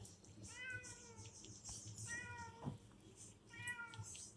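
Domestic cat meowing three times, each meow about half a second long and about a second and a half apart.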